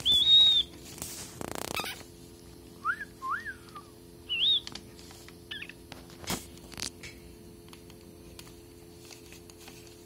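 Alexandrine parakeet whistling: one loud high whistle at the start, then several short rising-and-falling whistles a few seconds in. A brief rustle comes early on and two sharp taps follow the whistles.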